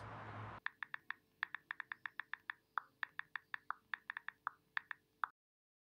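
Typing sound effect: a quick, uneven run of keystroke clicks, about six a second, over a faint steady hum, cutting off suddenly a little after five seconds in.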